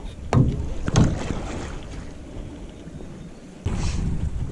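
Wind rumbling on the microphone as a small jon boat is paddled by hand, with two sharp knocks in the first second and the noise rising suddenly near the end.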